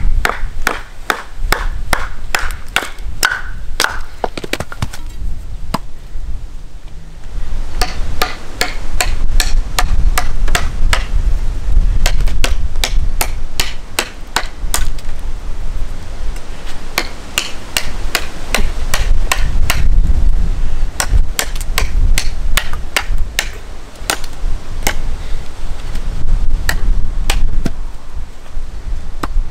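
A large handmade field knife with a 20 cm blade and orange G10 handle chopping into wood. Quick repeated chops, about two or three a second, with a short pause about six seconds in.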